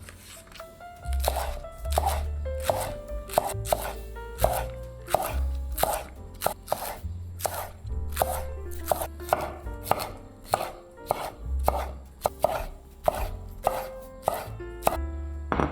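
Knife chopping on a cutting board, about two sharp strikes a second at an uneven pace, over background music.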